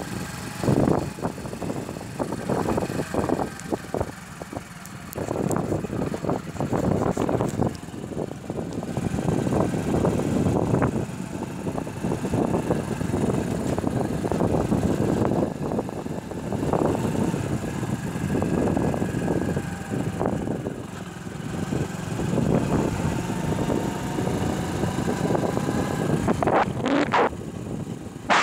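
Hero motorcycle riding along a road, its engine running steadily under way, with wind buffeting the microphone in uneven gusts.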